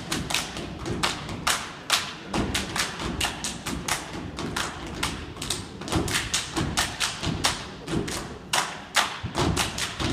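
A step team stepping in unison: feet stomping on the stage and hands clapping, a quick run of sharp strikes about four a second.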